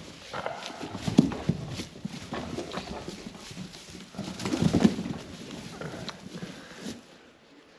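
A young buck goat struggling while being held, its hooves scuffling and clattering in irregular knocks with rustling; the loudest bursts come about a second in and again around four and a half seconds.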